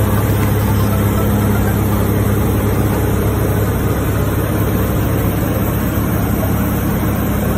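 Light single-engine piston aircraft's engine and propeller droning steadily in cruise, heard inside the cockpit as a loud, even, low hum.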